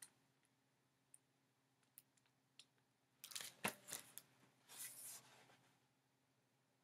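Near silence broken by faint handling of a paperback picture book: a few small clicks, then brief paper rustles with a sharp tap about three and a half seconds in and another short rustle about a second later.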